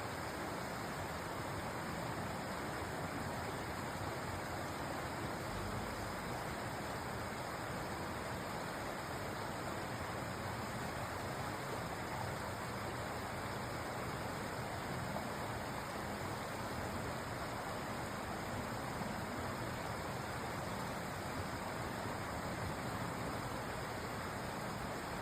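Forest stream flowing through tree roots: a steady, unbroken rush of running water.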